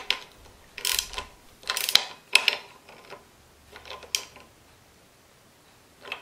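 Ratchet wrench clicking in short bursts while it tightens the sight-glass drain plug back into the compressor's crankcase. There are about seven bursts, most in the first four seconds and one more near the end.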